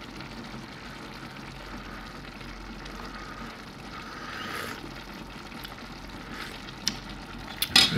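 Huitlacoche and cheese stew simmering in an enamel pot, a steady even hiss, with two sharp clicks near the end.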